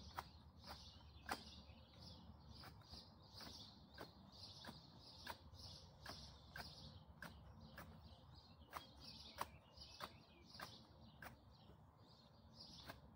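Faint, irregular snips of hand pruning shears cutting grass and plant stems, roughly one or two sharp clicks a second.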